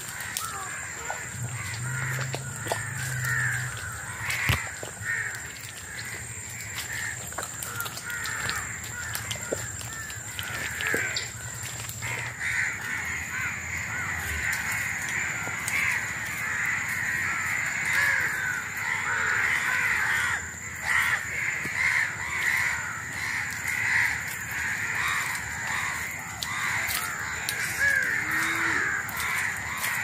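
A dense chorus of many birds calling and chattering, with crow-like caws, growing thicker about a third of the way in. A steady thin high whine runs under it, and there are scattered snaps and footfalls of people walking through twigs and mud.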